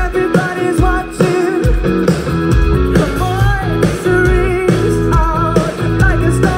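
Live rock band playing: a lead singer over electric guitar, bass guitar and a steady drum beat, loud through the stage sound system.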